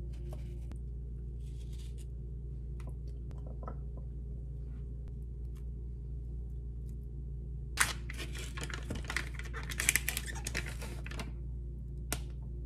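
Knife cutting strawberries and banana on a wooden cutting board: light, scattered taps and cuts over a steady low hum, then a busier stretch of rapid clicking and scraping from about eight seconds in that lasts about three seconds.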